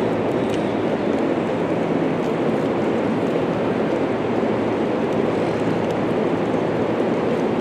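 Steady rumbling background noise of a large hall, with a low hum under it and faint scattered clicks from soroban abacus beads and pencils.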